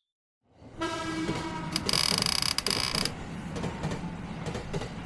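Cartoon vehicle sound effect: a rumbling, rattling run with irregular clicks, starting after a short silence, with a loud hiss about two seconds in that lasts roughly a second.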